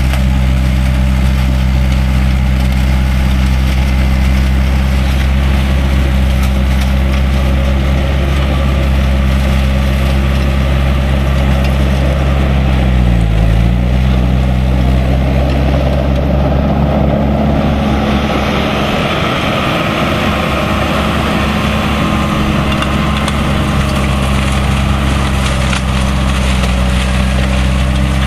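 Holder M 480 vineyard tool-carrier tractor's engine running steadily, with a brief dip in engine pitch about halfway through. From about two-thirds of the way in, a higher rushing noise joins the engine.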